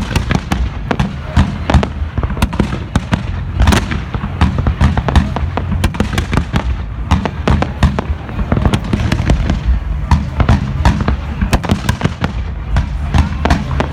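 A dense barrage of fireworks going off without a break: many sharp bangs a second, overlapping one another over a constant deep rumble.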